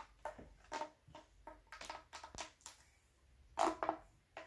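Plastic pop tubes being twisted and handled, giving a string of light, irregular clicks and crackles, with one louder pop about three and a half seconds in.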